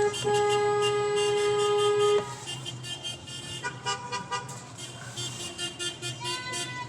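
A car horn held in one long steady blast for about two seconds, then a fainter, slightly lower horn sounding on and off in several short honks.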